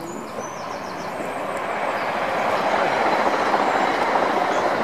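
A vehicle passing by: a rushing noise that swells to a peak about three seconds in and then eases off.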